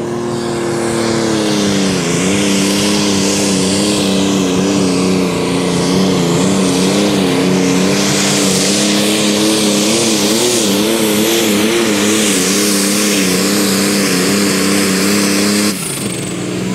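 Turbocharged diesel engine of a 3.5-tonne Pro Stock pulling tractor at full throttle under load, dragging the brake sled. The engine note holds steady, wavers up and down in pitch midway as the revs fluctuate, and drops off abruptly near the end.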